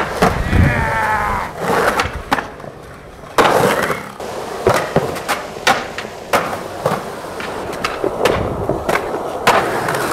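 Skateboard riding a concrete bowl: urethane wheels rolling on the concrete, with repeated sharp clacks and knocks from the board and trucks, and a brief squealing scrape about half a second in.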